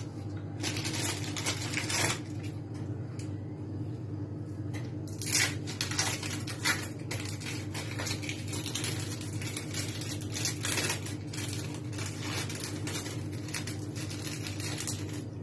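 Thin plastic wrappers of sandwich cheese slices crinkling and rustling in irregular bursts as they are peeled off, with heavier crackles about 2 s, 5 to 7 s and 10 to 11 s in. A steady low hum runs beneath.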